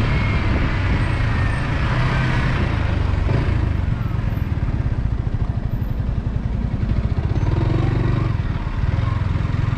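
Yamaha XSR125's single-cylinder four-stroke engine running on the move, its note shifting up and down a few times as the revs change, with wind rush on the microphone.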